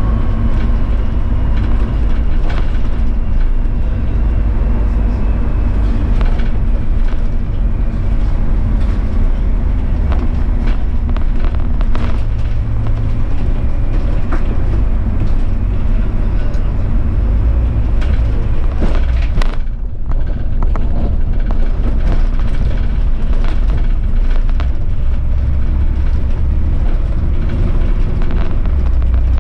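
City bus driving along a winter road: steady low engine and road rumble with frequent rattles and clicks. About two-thirds of the way through comes a short squeal that falls quickly in pitch.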